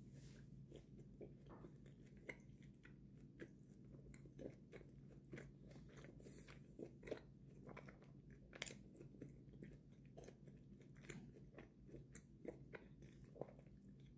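A person chewing food close to the microphone: faint, irregular wet clicks and smacks of the mouth, a few to several a second.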